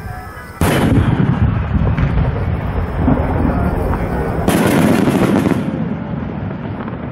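Large No. 10 (about 30 cm) aerial firework shells booming, heard from the launch site: a sudden loud boom about half a second in, a rolling rumble of further bursts, and another loud blast about four and a half seconds in.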